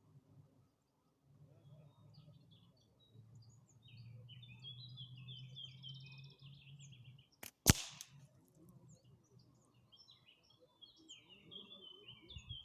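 A single short, sharp shot from a suppressed Hammerli Tac R1 .22LR rifle, a little past the middle. Birds chirp before and after it.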